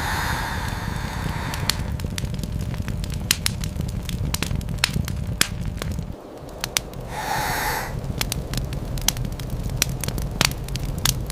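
Wood fire crackling with many sharp, irregular pops over a steady low rumble, with short hissing stretches at the start and about seven seconds in.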